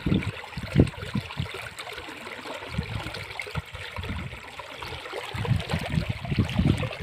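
River water flowing: a steady rush of moving water with irregular deep gurgles, heavier at the start and again near the end.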